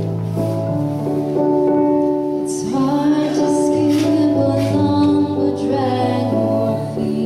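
Opening of a slow song played live: sustained keyboard chords that change every second or so, with a woman's singing voice coming in about two and a half seconds in and again near the end.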